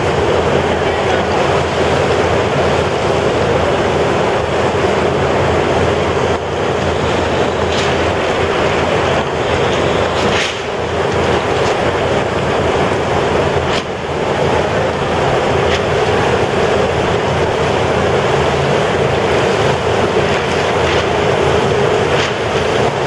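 Steady, loud rushing of wind blowing across an indoor pool, with the water rippling under it.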